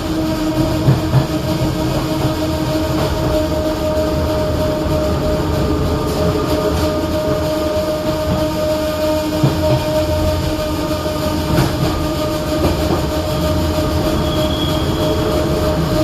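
Renfe class 442 narrow-gauge electric multiple unit running steadily, with a steady two-note electric whine over the rumble of wheels on rail and a few clicks from the track.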